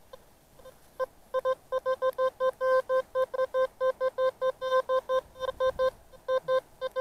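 Metal detector giving a target signal as the coil sweeps the ground: a rapid run of short beeps on one steady pitch, about four a second, sounding as a double signal over a buried metal target.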